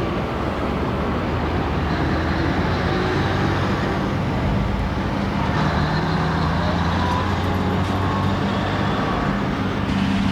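Steady low mechanical drone of a news helicopter's engine and rotors, a constant hum under a broad rushing noise.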